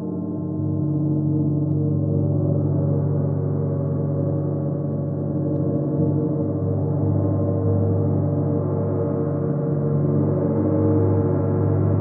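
A 31-inch Chinese white gong played with a soft padded mallet, sounding a steady, sustained wash of many overlapping tones, strongest in the low range, that swells gently now and then without separate strikes standing out.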